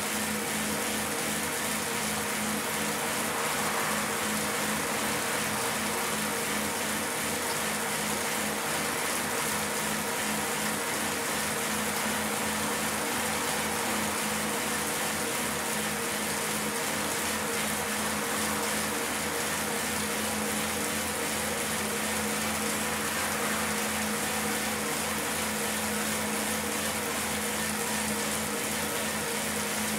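Bicycle on an indoor turbo trainer: the rear tyre spinning against the trainer's roller as the rider pedals, making a steady whirring hum with a constant tone.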